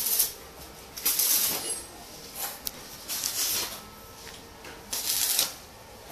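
Short bursts of scraping, rustling noise, about five of them at irregular intervals, over a low steady background.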